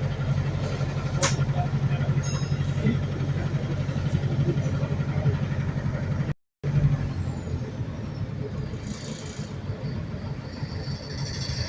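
Interior of a Wright New Bus for London hybrid double-decker underway: a steady low drivetrain drone, with a sharp click about a second in. The sound cuts out for a moment past the middle, then a thin high whistle slides down in pitch.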